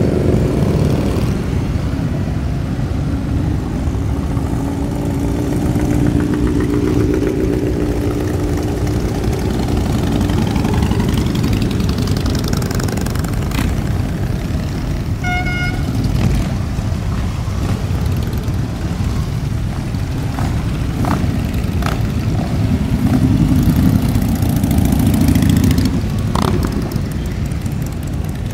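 A procession of motorcycles, touring bikes and trikes, riding past one after another at low speed, their engines running with pitch rising and falling as each bike goes by. A short horn beep sounds about halfway through.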